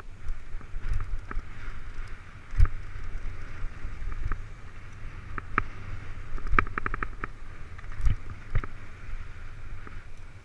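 Mountain bike riding fast down a dirt singletrack, heard from a camera on the rider: a steady rumble of wind on the microphone and tyres on dirt, with sharp knocks and rattles from the bike over bumps, including a quick run of rattling a little past the middle.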